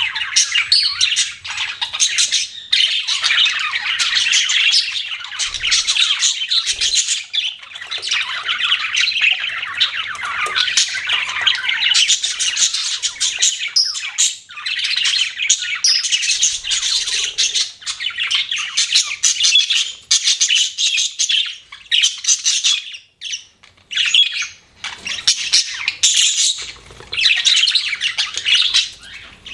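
Budgerigars chattering continuously in quick chirps and squawks, with short lulls about fourteen and twenty-three seconds in.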